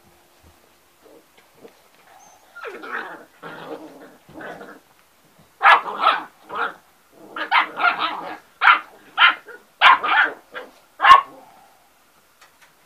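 Boxer puppies barking: softer calls first, then about halfway through a quick string of about a dozen short, loud barks that stops a little before the end.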